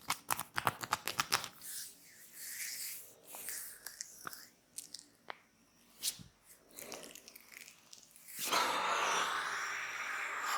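Hands massaging a person's back and shoulders: fast, even tapping strokes at first, then scattered rubbing with a few sharp slaps or clicks. About eight seconds in, a louder, steady brisk rubbing starts and cuts off abruptly.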